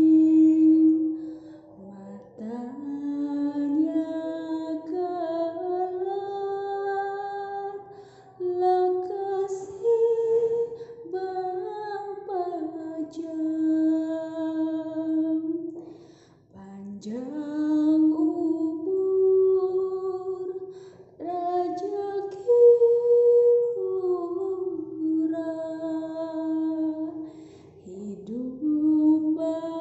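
A woman singing a slow lullaby solo, in long phrases of held notes. Each phrase opens with an upward slide into the note, with short pauses for breath between phrases.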